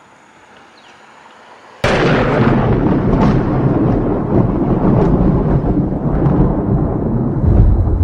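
Thunderclap sound effect: a sudden loud crack about two seconds in, followed by a long, loud rumble.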